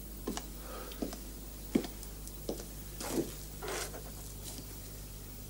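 Footsteps knocking on wooden floorboards, a few scattered steps in the first couple of seconds, then two breathy, sobbing breaths about three seconds in, over a steady low hum.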